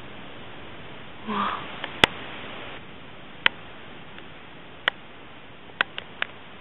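Steady hiss from an old compact digital camera's built-in microphone, with a short voice sound about a second in, then six sharp clicks of hands handling the camera: the loudest about two seconds in, and three close together near the end.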